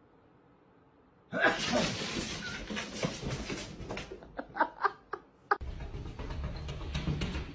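Near silence at first, then a person laughing, breaking into a few short separate bursts of laughter. Near the end a steady low hum with background noise takes over.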